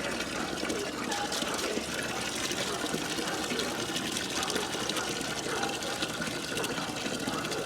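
Water running steadily, filling a cattle water trough.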